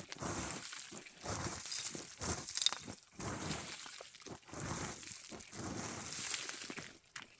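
Rocky gravel crunching and scraping in a run of irregular strokes, each about a second long with short gaps between.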